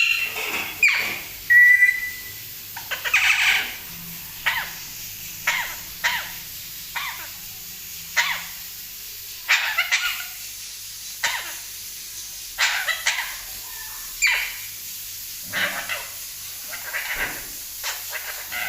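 Parrot imitating a human cough: short, rasping coughs repeated about once a second, with one brief whistled note near the start.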